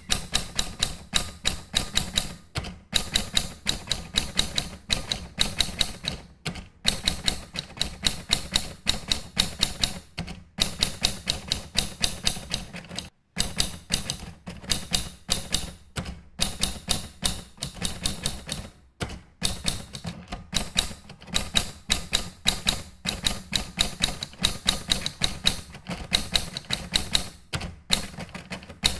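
Mechanical typewriter being typed on: rapid key strikes clacking several times a second, in runs broken by brief pauses.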